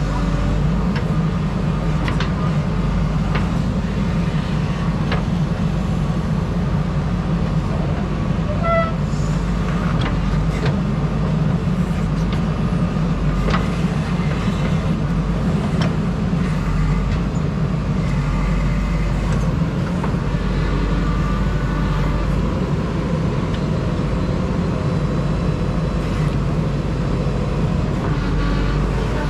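JCB backhoe loader's diesel engine running steadily while it works, with scattered knocks and clanks.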